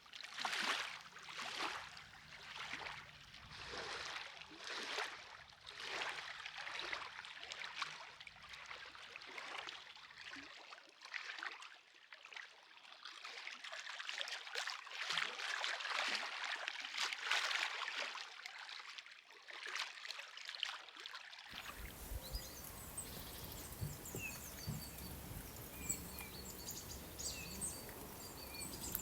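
Water sloshing in rhythmic strokes about once a second. About 21 seconds in it cuts off suddenly to outdoor ambience with small birds chirping.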